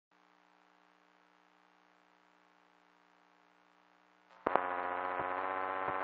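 Near silence, then about four seconds in a steady, buzzy hum starts suddenly, with a few faint clicks.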